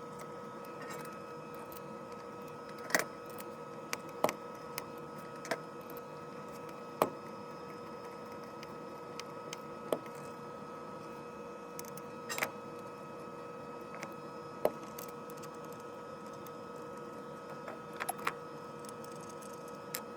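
Scattered sharp clicks and knocks of steel rifle parts being fitted together by hand during assembly of a Gewehr 88 Commission Rifle, about ten in all at uneven gaps, over a steady hum.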